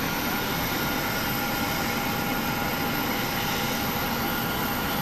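Parked Airbus A321 at the stand running steadily: a constant jet-turbine whine with a few steady high tones over an even rushing noise.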